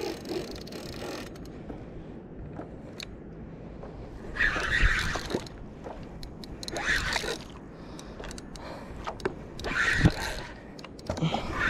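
Penn spinning reel working a hooked fish: three short scraping bursts a couple of seconds apart as line is worked on the reel. The reel's main gear had play and was slipping and grinding teeth.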